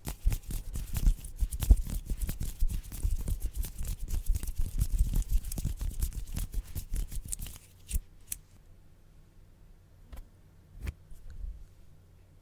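Scissors snipping rapidly close to the microphone, a dense run of sharp crisp cuts that stops about three-quarters of the way in, leaving a few isolated clicks.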